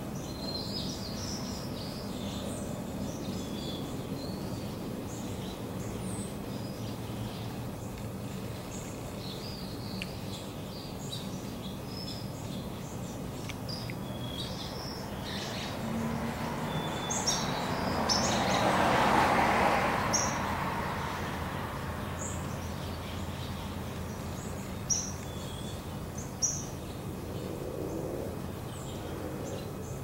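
Small birds chirping in short, scattered calls over a steady low hum of distant traffic. Midway a car passes, its noise swelling and fading over about four seconds. Two sharp clicks come near the end.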